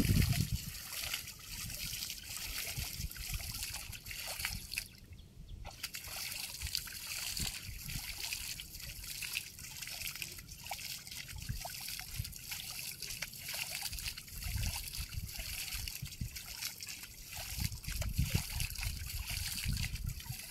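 Shallow floodwater trickling, dripping and sloshing as a cast net is hauled in through a flooded paddy field, with many small drips and splashes. The sloshing grows a little louder near the end as the net is cast again.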